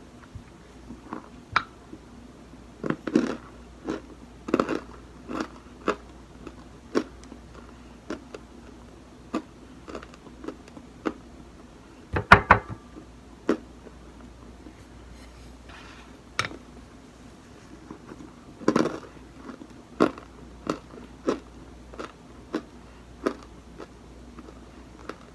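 Loose cornstarch crunching in short, irregular crunches as it is chewed and pressed between the fingers, with a louder cluster of crunches about halfway through.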